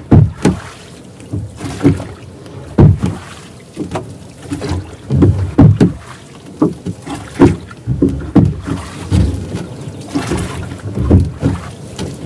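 Water sloshing and slapping against a small rowboat, in many irregular short splashes over a steady wash of water and wind.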